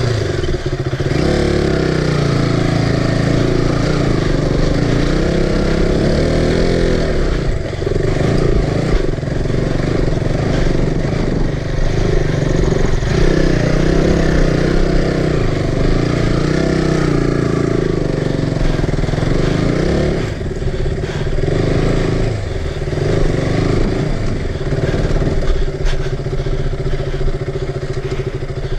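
Motorcycle engine running hard over rough ground, its revs rising and falling again and again, easing off about seven seconds in and again about twenty seconds in.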